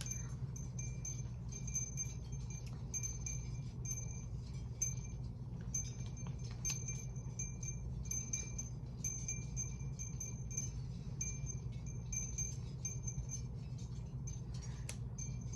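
Wind chimes tinkling on and off, with clear high notes ringing at irregular intervals, over a steady low hum.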